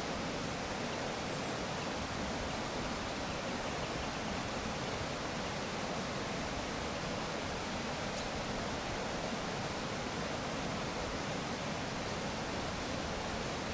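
Steady, even rushing noise at a moderate level, with no distinct sounds in it.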